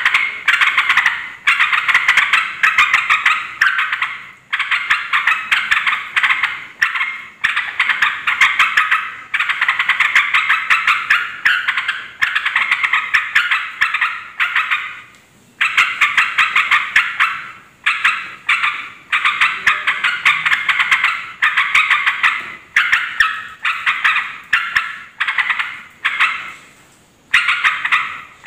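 Yellow-vented bulbul (trucukan) calling noisily: rapid chattering bursts of bubbly notes in phrases of one to three seconds with short breaks between. This is the agitated call used as a lure to provoke other bulbuls into answering.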